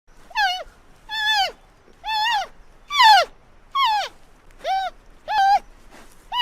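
An animal calling over and over: about eight short, pitched calls, a little under a second apart, each holding its pitch and then dropping at the end.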